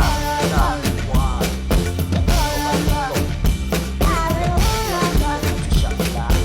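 Music beat with a drum kit (kick, snare and rimshots) under a sampled kitten meowing in a repeating pattern of gliding calls.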